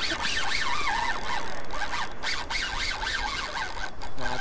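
Spinning reel being cranked while fighting a hooked fish: a steady whirring whine from the reel, wavering up and down in pitch as the handle turns.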